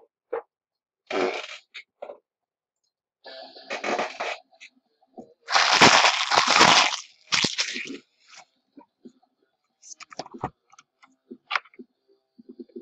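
Trading card box packaging and wrappers being handled and torn open: bursts of crinkling and tearing, the loudest a long rip about halfway in, followed by scattered light clicks and taps.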